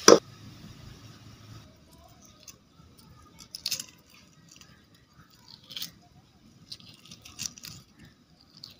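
Hard-boiled eggshells crackling and crunching as fingers peel them, a few sharp crackles a second or two apart among faint clicks. It opens with a short knock and a second and a half of onions sizzling in oil before the crackling starts.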